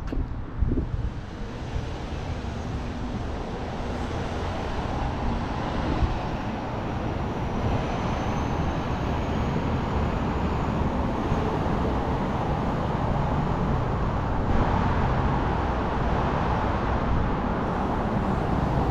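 Street traffic on a multi-lane city road: cars passing with a steady rumble of road and tyre noise.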